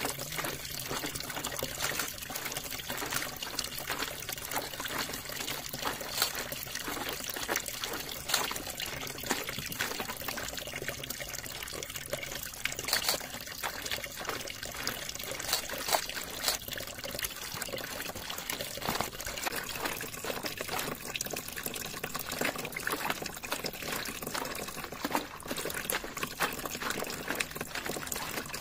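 Bare feet treading a heap of ripe cashew apples, crushing the fruit with irregular wet squelches and splashes as the juice runs off and trickles away.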